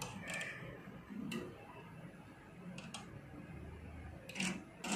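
About half a dozen faint, sharp clicks at irregular intervals, two of them in a quick pair near the middle, from handling the imaging equipment.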